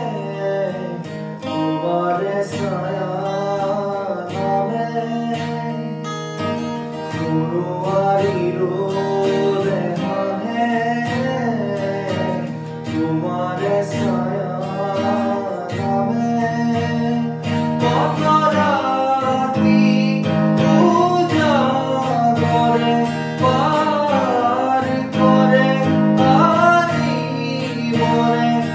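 A man singing with his own strummed acoustic guitar. His voice climbs higher and a little louder in the second half.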